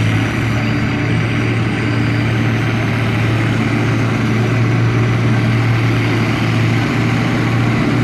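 Massey Ferguson 1155 and International 956 XL tractors hitched in tandem, their diesel engines running hard and steady under load as they pull a tractor-pull sled.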